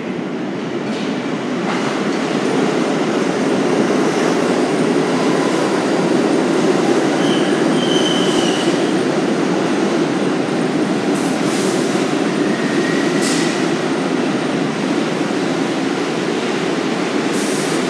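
Bombardier-built R62A subway train running along the station platform: a loud steady rumble with a few brief wheel squeals.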